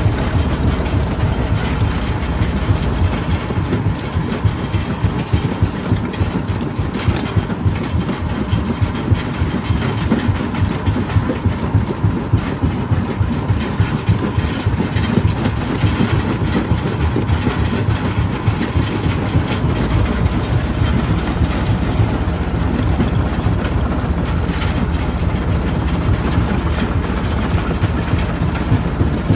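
Stone jaw crusher running under load, its jaws crushing slabs and lumps of rock: a steady, heavy grinding noise that pulses quickly and evenly with the crushing strokes, mixed with the cracking of breaking stone.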